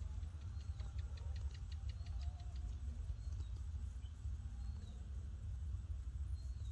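Outdoor ambience with a steady low rumble, like wind on the microphone. In the first two seconds comes a quick, even run of about a dozen high ticks, about six a second, and a few faint short high chirps follow later.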